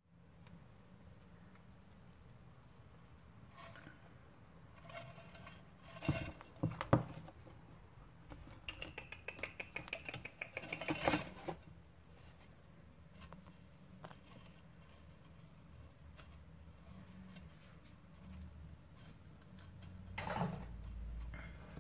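Water monitor's claws scratching and scrabbling on tile and loose soil substrate as it moves about. There are two sharp knocks about six seconds in and a quick run of clicks from about nine to eleven seconds.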